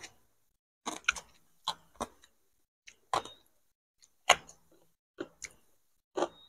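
Crunching of crisp fried food being chewed close to a clip-on microphone: sharp, short crunches at uneven spacing, about two a second.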